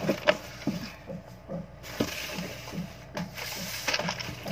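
Small 10 ml roll-on bottles knocking and clicking against each other as they are lifted out of a cardboard box and set down in rows, a quick irregular series of small knocks.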